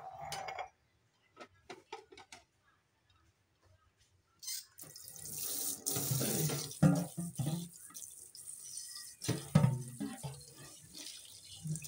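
Water running from a kitchen tap into a sink, starting about four and a half seconds in with a steady hiss, with dull knocks and clatter of items being handled in the sink.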